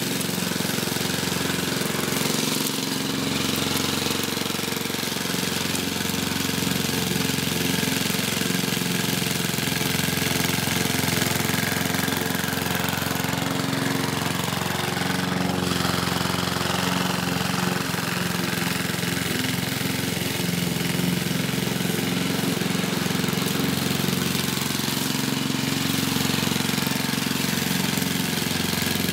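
A 1960s Goodall rotary push mower's 3 HP four-stroke Briggs & Stratton engine running steadily while cutting grass.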